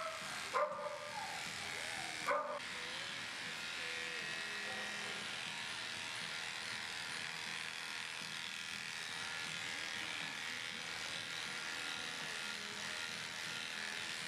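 Electric grooming clippers run steadily while shaving a dog's matted coat. A dog gives two short, sharp barks in the first few seconds.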